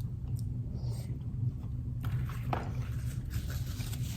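Eating noises: small mouth sounds and a few soft clicks, more of them in the second half, over a steady low hum.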